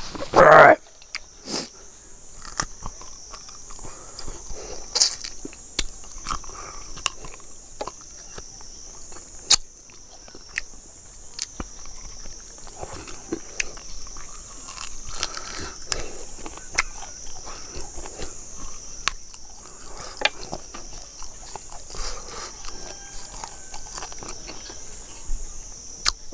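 Close-up eating sounds of a person chewing roasted chicken and sucking meat off the bones: lip smacks, wet sucking and sharp clicks throughout, with one brief loud mouth sound about half a second in. A steady high insect buzz runs behind.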